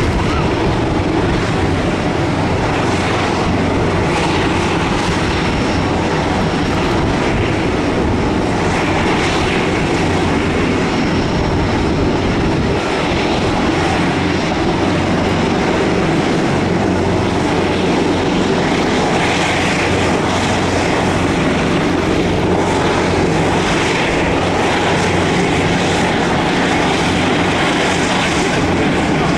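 Boeing 787-10's Rolls-Royce Trent 1000 turbofans running at taxi power, a steady rumble with a faint high whine that holds throughout.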